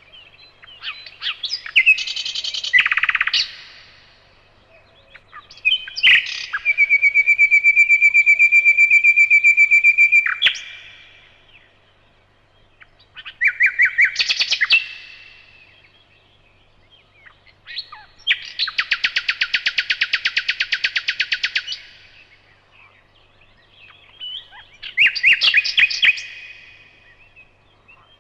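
Nightingale singing: five separate song phrases with pauses of a few seconds between them, among them a long run of one fast-repeated note and a rapid, dense trill.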